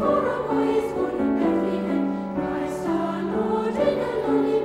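Background music: a choir singing slow, held notes that change every second or so.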